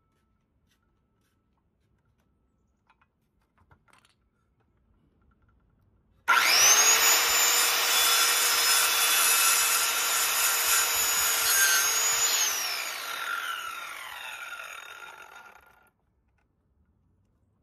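Near silence, then about six seconds in an electric power saw starts suddenly with a high whine and cuts wood for about six seconds. Switched off, its whine falls in pitch as the blade winds down over three or four seconds.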